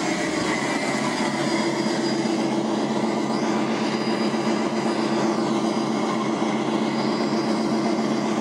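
Steady low mechanical hum with a constant hiss inside a submarine compartment, unchanging throughout.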